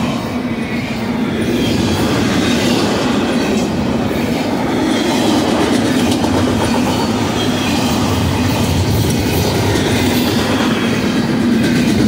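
Double-stack intermodal freight cars rolling past at speed: a loud, steady rumble of steel wheels on rail with clickety-clack from the wheels.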